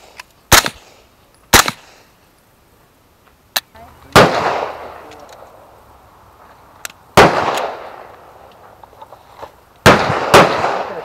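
Gunshots at an outdoor range. Two short, sharp shots come in the first two seconds. Then four shots ring out with long echoing tails: one about four seconds in, one about seven, and a close pair near the end.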